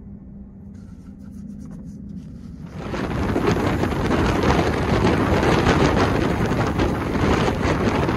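Low rumble of a moving Amtrak Superliner train with a steady hum. About three seconds in, it gives way to a loud, rough rush of wind buffeting the microphone as it is held outside the moving train.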